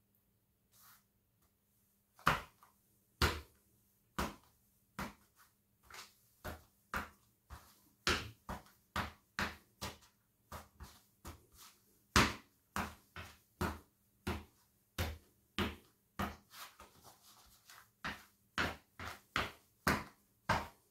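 Fila sneakers stamping repeatedly on a tiled floor, crushing a bread roll into crumbs, with sharp steps about twice a second starting about two seconds in.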